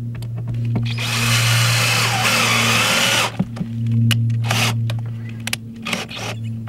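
Cordless drill/driver running for about two seconds as it drives a screw through a brass lid-support bracket into the sheet-metal side, the motor pitch dropping as the screw bites, then a few short trigger bursts.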